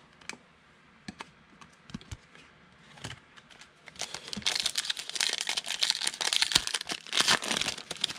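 Foil trading-card pack wrapper being torn open and crinkled. A few light clicks and taps come first, and the crinkling starts about four seconds in and carries on to the end.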